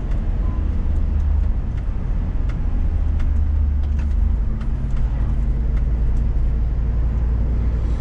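Cab interior of a Scania S500 truck at highway speed: steady diesel engine drone under road noise, the engine note changing about four seconds in.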